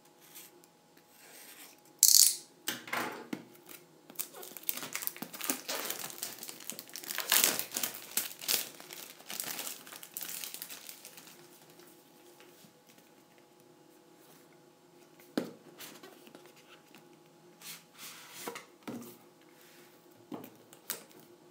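Clear plastic shrink-wrap being slit with a box cutter and torn off a small cardboard box, with a sharp loud rip about two seconds in, then several seconds of crinkling. After that come fainter rustles and taps as the box is handled and opened.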